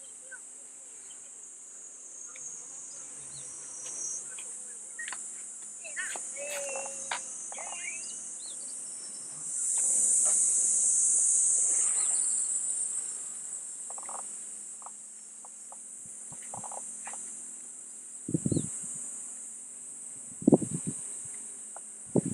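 Cicadas buzzing in a steady high chorus that swells louder for a couple of seconds around the middle, with a few faint bird chirps. Near the end come three short, loud sounds of unclear source.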